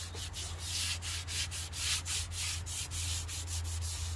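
Hand sanding with 320-grit sandpaper on a white lacquer-painted wooden dresser: quick back-and-forth rubbing strokes, a light scuff-sand to knock down rough spots between coats.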